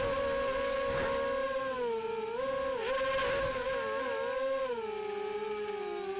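Flip 260 quadcopter's electric motors and propellers whining, heard through a camera mounted on the quad. The pitch dips briefly several times and settles lower near the end as the throttle changes during acro flying.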